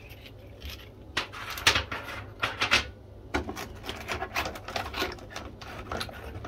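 Ceramic filter-media rings clattering against one another as they are handled, in a run of irregular clicks and rattles.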